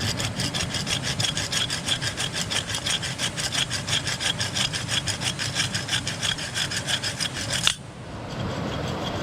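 Portable folding hand saw cutting through a wooden branch in quick, even back-and-forth strokes, ending with a sharp snap about three-quarters of the way through.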